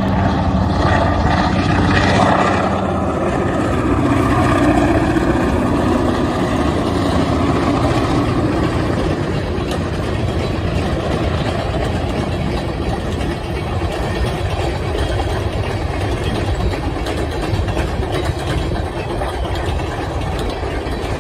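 Diesel freight locomotive passing, its engine loudest in the first few seconds, then the steady rolling noise of freight cars going by on the rails.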